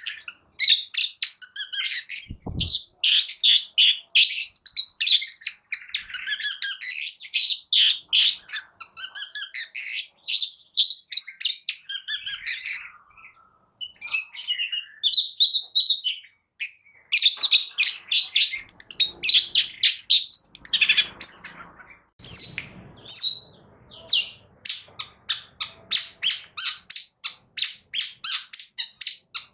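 Long-tailed shrike (cendet) singing a fast, varied song of chirps and twittering phrases. In the last several seconds it goes into a rapid run of short, sharp repeated notes.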